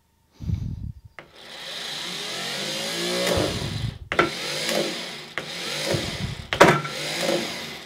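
Starter motor on a Reliant Regal 600cc engine whirring in several bursts with short breaks, after a thud about half a second in, while the engine does not fire. The starter solenoid is not pulling in fully.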